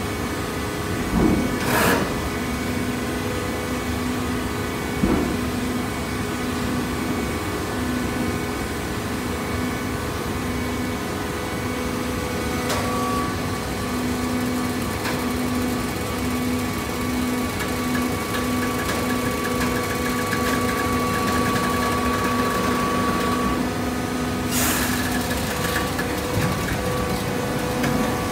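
Horizontal hydraulic baler running: the steady hum of its motor and hydraulic pump, with two short hisses, one about two seconds in and one near the end.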